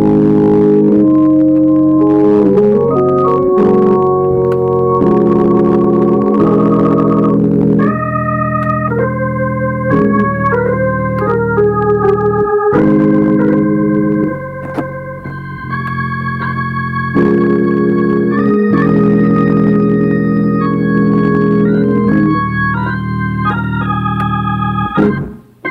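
Church organ playing a gospel worship song in sustained, held chords that change step by step, with a higher melody line entering about eight seconds in. The playing cuts off just before the end.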